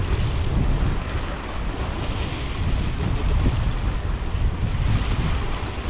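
Wind buffeting the microphone in gusts, over the steady wash of sea waves on the shore.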